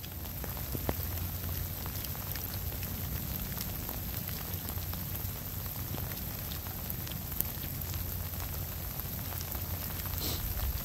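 Steady rain falling, with scattered faint drop ticks over an even hiss and a low rumble underneath.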